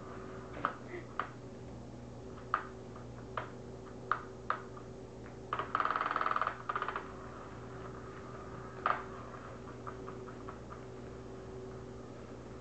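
A cat batting at a motorised Undercover Mouse toy: scattered light taps and clicks on its nylon skirt, with a burst of fast rattling and scratching about halfway through, over a faint steady hum.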